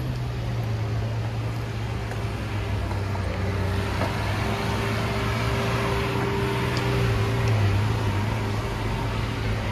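Lamborghini Aventador's V12 engine running at low speed: a steady low engine note that grows a little louder about seven to eight seconds in.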